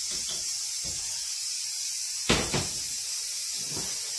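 Fagor pressure cooker hissing steadily as its valve vents steam while still under pressure and cooking. About two seconds in come two sharp knocks in quick succession as the pot is set down on a cold burner.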